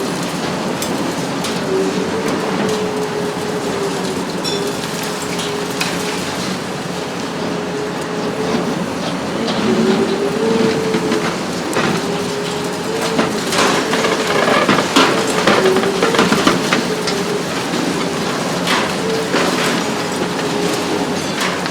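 Hitachi ZX 870-3 long-front demolition excavator working, its engine and hydraulics running with a steady whine that rises and dips with load. Concrete and debris crack and clatter under its demolition shear, busiest in the middle stretch.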